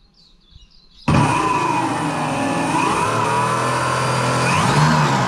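Brushless electric motors of a mini jet boat's jet-drive units start suddenly about a second in, powered through their speed controllers on a first wiring test. They run loudly, their pitch wavering a little as the speed shifts.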